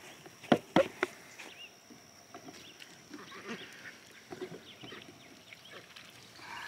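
Farm animals calling faintly in short scattered calls, with three sharp clicks between about half a second and a second in.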